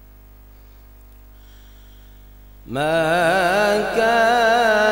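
A steady electrical hum, then about two and a half seconds in a man's voice starts loudly into melodic Quran recitation (tilawat). It is one long phrase with wavering, ornamented held notes, sung into a microphone.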